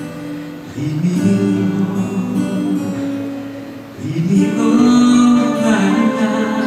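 Recorded dance music with guitar, played over a theatre's sound system; the music swells about a second in and again about four seconds in.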